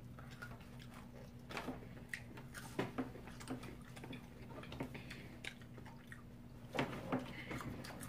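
Quiet chewing of fries and chicken strips, with scattered soft mouth clicks and small ticks over a faint steady low hum.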